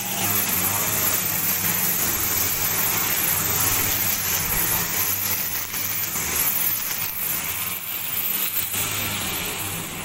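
Gasoline grass trimmer engine running steadily as the worker cuts grass.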